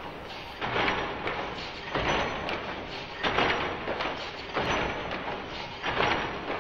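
Power loom clattering, slowed down: five drawn-out, noisy strokes, one about every second and a third, as the shuttle is thrown across and the beater strikes.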